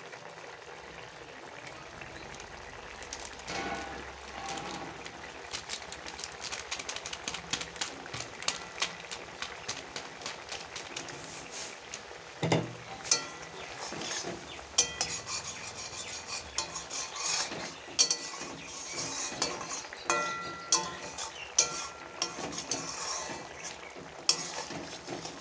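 Thick curry bubbling and spluttering in a metal kadai, a constant crackle of popping bubbles. From about halfway through, a metal spatula stirs and scrapes in the pan, knocking against it several times.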